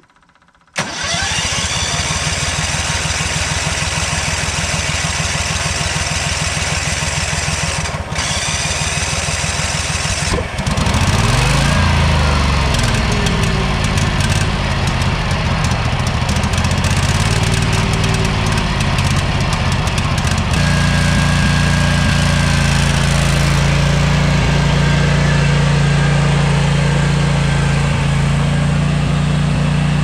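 Bobcat 371 skid steer's swapped-in Vanguard V-twin gasoline engine comes in suddenly about a second in and runs steadily. From about ten seconds in its speed swings up and down, and from about twenty seconds in it settles into a louder, steady note.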